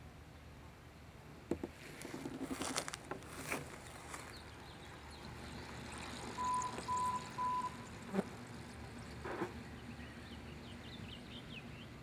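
Quiet outdoor ambience with scattered clicks and knocks, and three short beeps at one pitch about six and a half seconds in.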